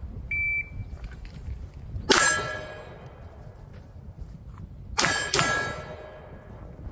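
A shot timer beeps once to start the drill. Then come pistol shots, each ringing a steel target: one about two seconds in, and two quick ones close together around five seconds in.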